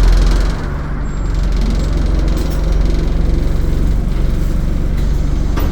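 ADL Enviro 200 bus's Euro 4 diesel engine idling with its engine cooling fan running as a loud airy rush; about half a second in the fan cuts out, leaving the steadier, quieter engine hum.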